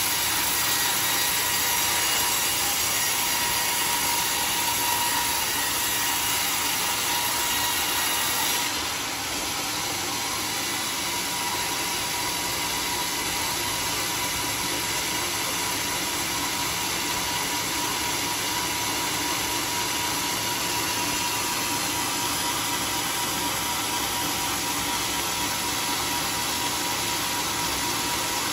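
Band sawmill blade cutting lengthwise through a large teak log, a steady loud saw noise with a constant whine. The level drops slightly about nine seconds in and then holds steady.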